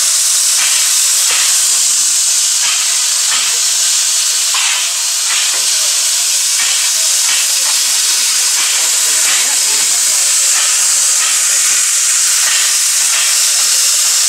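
Steady loud hiss of steam escaping from a standing Tkt48 steam tank locomotive, with faint repeated knocks under it.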